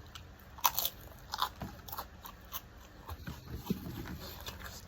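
A person eating close to the microphone: chewing and biting, with sharp wet mouth clicks and smacks at uneven intervals, the loudest a little under a second in.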